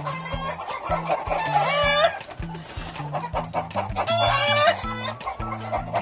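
Game roosters crowing, two long crows ending about two seconds in and near five seconds in, over background music with a steady bass line.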